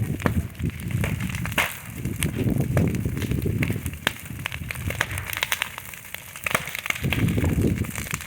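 Bonfire burning, with many sharp crackles and pops over a low rumble that swells and fades every second or two.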